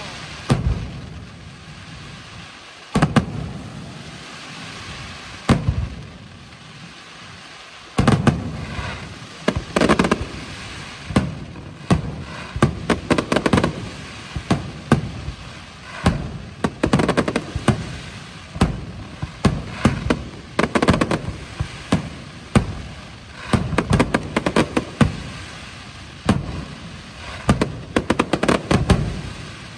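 Aerial firework shells bursting with sharp bangs. A few widely spaced bangs come first, then from about eight seconds in dense, rapid volleys of bangs follow one after another.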